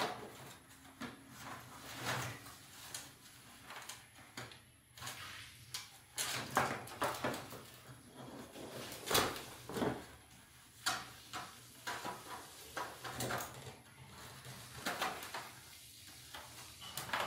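Irregular knocks, clicks and rustling of a woven bamboo lamp shade and its bent bamboo frame being handled and fitted together by hand.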